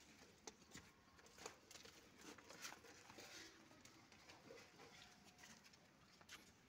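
Faint, scattered taps and shuffles of a goat's hooves and people's feet on brick paving as the goat is walked upright on its hind legs.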